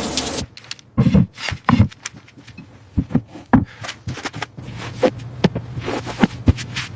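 A run of irregular knocks, taps and clicks at uneven spacing, with two heavier thuds in the first two seconds.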